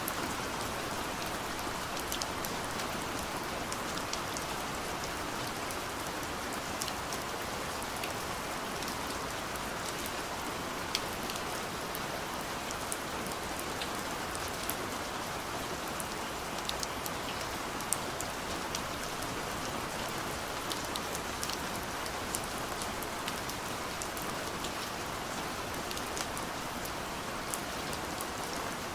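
Steady gentle rain on a window pane: an even hiss with scattered light drop ticks.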